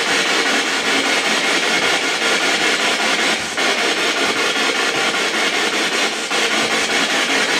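Loud, steady hiss of static-like noise, briefly dipping about three and a half seconds in and again near the end.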